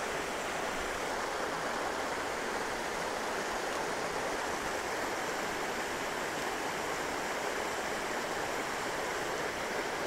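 Steady rush of a small stream's cascades tumbling over rocks.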